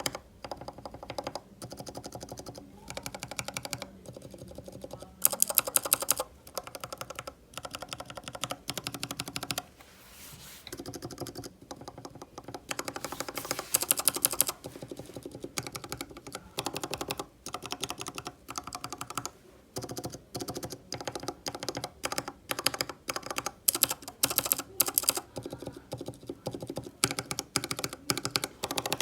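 Mechanical keyboard switches typed in fast runs of keystrokes with short pauses between runs. The click character changes every few seconds as different switch types are tried.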